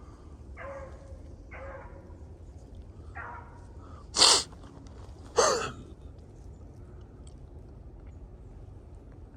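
Beagles giving tongue: a few short yelps, then two loud, sharp barks about a second apart near the middle.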